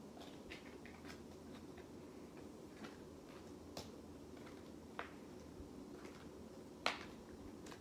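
Quiet room with faint, scattered small clicks and ticks, two sharper clicks about five seconds in and near the end.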